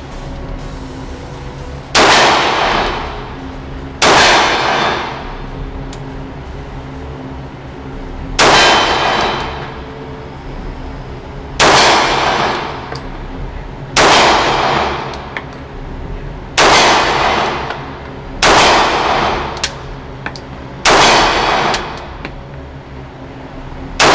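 H&K USP Compact pistol in .40 S&W fired nine times in slow, aimed fire, a shot every two to three seconds, the last right at the end. Each shot is a sharp report followed by about a second of ringing echo off the walls of an indoor shooting range.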